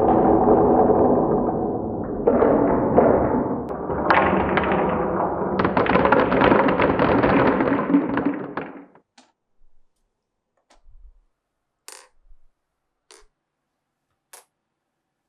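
Glass marbles rolling and rattling down a wooden marble run track, a dense rumble with many small knocks that stops suddenly about nine seconds in. After that come a few separate clicks of marbles dropping and clacking against each other.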